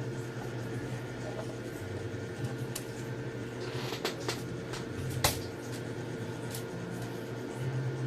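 Scattered sharp clicks and taps of small plastic and metal parts being handled while working on a laptop, the loudest about five seconds in, over a steady hum.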